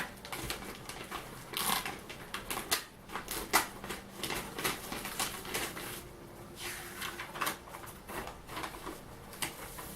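Packaging being handled as an air rifle is unboxed: irregular clicks, taps and rustling, with a quieter stretch about six seconds in.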